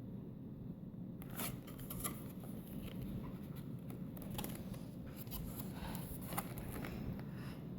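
Pages and flaps of a children's lift-the-flap board book being turned and handled: a run of light paper rustles and crisp little clicks, starting about a second in.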